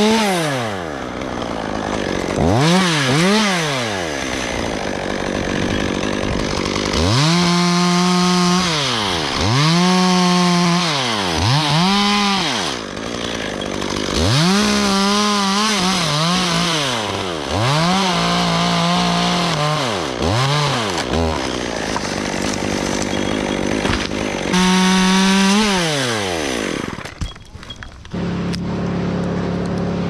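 Two-stroke chainsaw cutting dead oak limbs, its engine revving up to full throttle and dropping back again and again, about ten times. Near the end the saw stops, leaving a steady lower engine hum.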